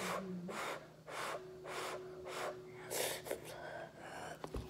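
A child panting hard through the mouth from the burn of spicy instant noodles, quick gasping breaths a little under two a second; a short knock near the end.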